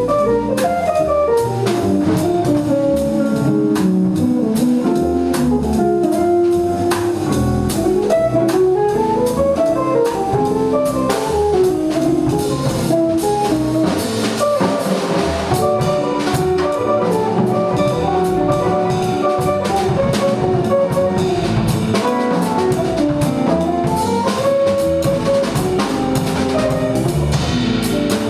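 Small jazz band playing live: two jazz guitars, upright bass and drum kit, with runs of single guitar notes climbing and falling over bass and cymbals.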